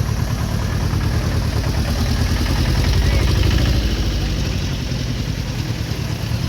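Vehicle engines idling with a steady low rumble, a little louder around the middle.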